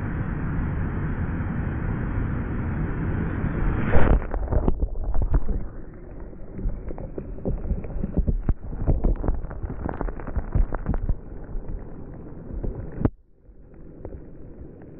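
Ocean surf breaking at the water's edge, heard from a microphone right at sand level. About four seconds in, a wave's wash reaches and covers the microphone: crackling, fizzing foam and swirling water follow. Near the end this cuts off suddenly as the water drains back, leaving quieter surf.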